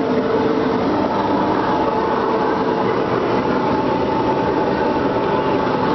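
Bumper boat motors running, a steady mechanical drone with a constant hum.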